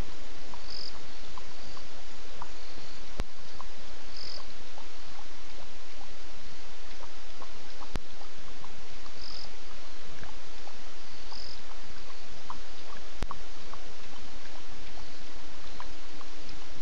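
Night chorus of frogs and insects calling at a waterhole over a steady hiss. Short high chirps repeat every second or two, and a sharp click comes about every five seconds.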